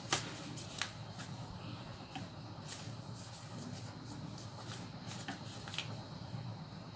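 A paper sheet being folded and creased by hand: soft rustling with several short, crisp crackles of the paper.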